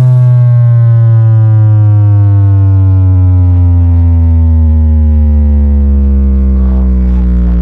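One loud electronic bass tone full of overtones, cutting in abruptly and then sliding slowly and steadily down in pitch, played through a large sound-system rig.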